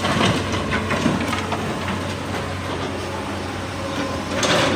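Diesel engine of heavy mining equipment running steadily, with scattered knocks and clanks and a louder burst of noise near the end.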